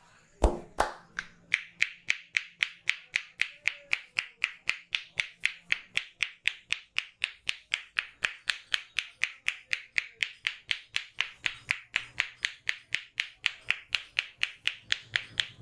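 Massage percussion: a barber's hands striking a client's head in a fast, even rhythm of clapping strokes, about four a second. Two louder knocks come just before the rhythm starts.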